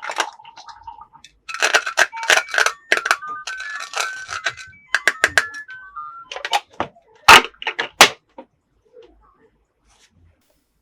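Anpanman toy house playing an electronic melody of short beeping notes that step up and down in pitch, amid clicks and knocks of its plastic parts being pressed and handled; the two loudest clicks come about seven and eight seconds in.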